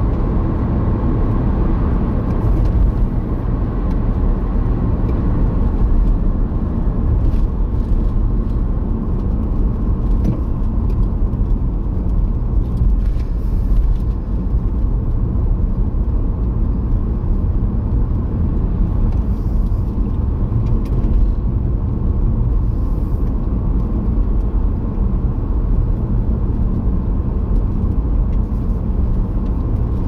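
Car driving along a road, with a steady rumble of engine and tyres heard from inside the cabin.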